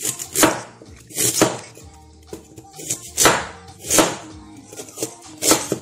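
A chef's knife chopping carrots on a cutting board, several sharp chops with uneven gaps between them, over background music.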